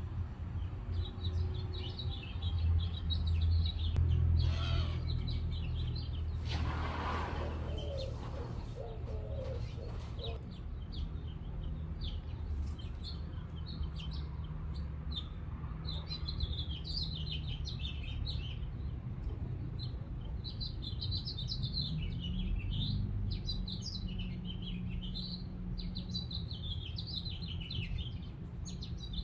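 Small birds chirping in quick, overlapping calls, over a steady low hum. A brief rushing noise comes about seven seconds in.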